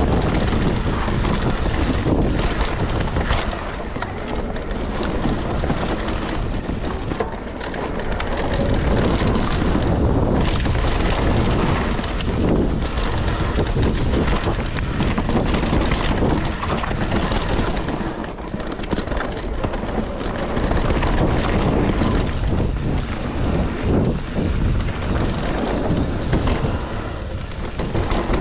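Specialized Turbo Levo electric mountain bike riding fast down a dirt trail: tyres on dirt and dry leaves, with many small knocks and rattles from the bike, under heavy wind noise on the microphone.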